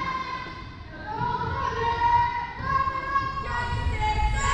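A volleyball team's girls' voices in a high, drawn-out sing-song chant, echoing in a large gymnasium.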